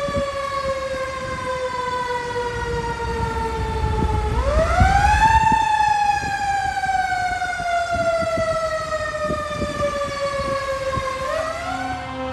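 Fire engine siren wailing over a low rumble. Its pitch falls slowly, climbs quickly about four seconds in, falls slowly again for several seconds, then starts to climb once more near the end.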